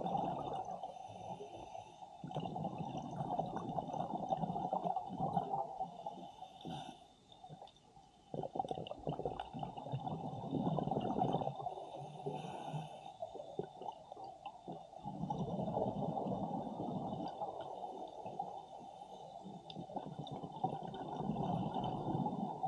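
Scuba regulator exhaust bubbles gurgling, heard underwater through the camera housing: a diver breathing out in surges several seconds long, with short pauses for the in-breath.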